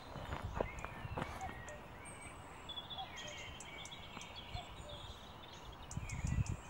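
Small birds chirping and calling in a pine wood, with short repeated calls throughout. A low rumble rises briefly about six seconds in.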